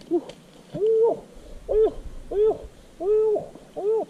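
An animal giving a series of hooting calls, each rising and falling in pitch, about one a second, some short and some held longer.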